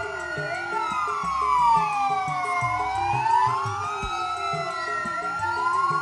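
Several sirens wailing at once, each rising and falling slowly and out of step with the others, over a steady high tone: the commemoration siren sounded at a Heroes' Day ceremony.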